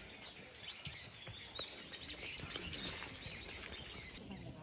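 Wild birds singing and chirping in the trees, many quick overlapping chirps that sweep up and down in pitch, busiest in the middle.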